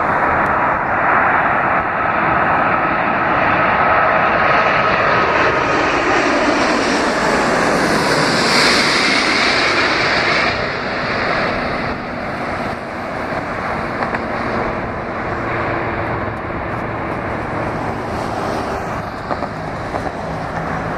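Airbus A380-841's four Rolls-Royce Trent 900 turbofans on final approach, passing low overhead: a jet rumble with a steady whine that builds, is loudest about eight to ten seconds in, then drops to a lower rumble fading away as the airliner descends to the runway.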